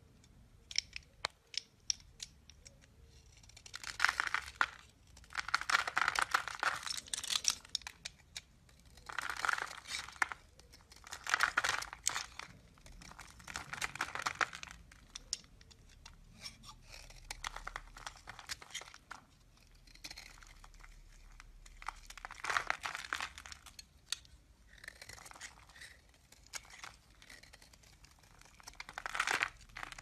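Snap-off utility knife blade shaving and scraping a bar of soap, the soap crumbling into flakes. It comes as a string of scrapes, each a second or two long, with short quiet gaps between, and a few light ticks in the first seconds.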